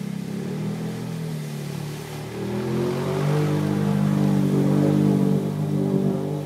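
Can-Am Outlander 800 ATV's V-twin engine pulling hard under throttle while the quad ploughs through shallow river water, with splashing. About two seconds in, the engine note rises and grows louder.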